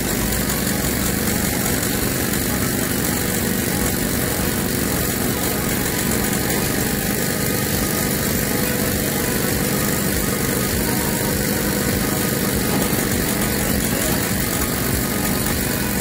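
Diesel engine of a Komatsu long-reach excavator running steadily, a constant loud drone without breaks or impacts.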